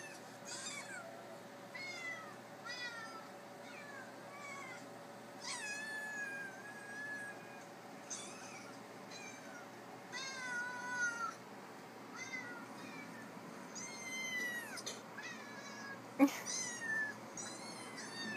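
Recorded kittens and cats meowing through an iPad's speaker: a string of high meows, roughly one a second, some overlapping. About 16 seconds in, a sharp knock is the loudest sound.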